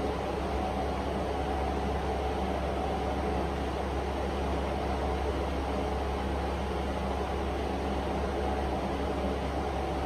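Steady low hum with an even hiss and no change or sudden sounds: constant machine or electrical background noise.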